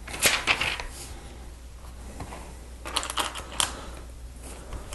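Small plastic Lego pieces clicking and clattering as they are handled and pressed together: a few clicks just after the start and a quick cluster around three seconds in.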